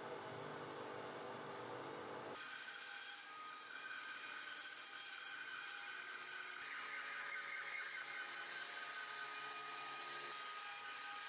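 A low steady hum, then about two seconds in the sound changes abruptly to a bench band saw running and cutting a hardwood board, a steady whir with a thin whine over it.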